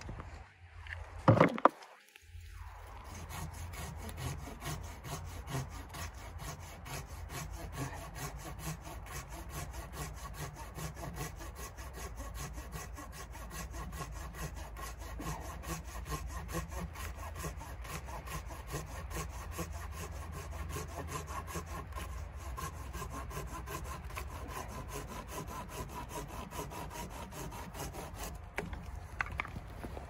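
Folding hand saw cutting through a fallen pine log in steady back-and-forth strokes. A couple of sharp knocks come in the first two seconds, before the sawing settles in.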